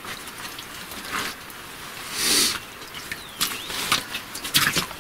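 Gloved hands digging in wet mud and muddy water: squelching and splashing, with a short louder splash about two seconds in and a few sharp knocks near the end.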